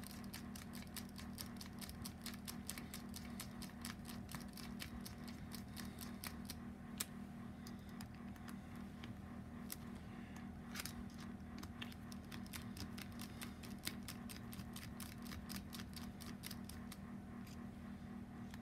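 Rapid runs of small metallic clicks and ticks from a hex key working the cylinder head bolts of a Toyan FS-L400 model four-stroke engine as they are snugged down in sequence, over a faint steady low hum.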